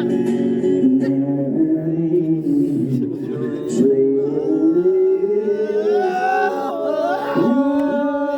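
A group of people singing together, holding long notes that slide up and down in pitch, with several voices overlapping.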